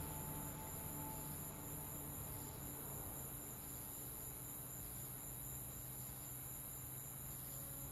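Crickets chirping steadily in night ambience, with a faint low steady drone underneath.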